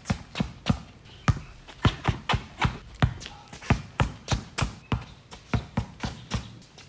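Basketball dribbled hard and low on a concrete court: a quick, even run of sharp bounces, about three to four a second.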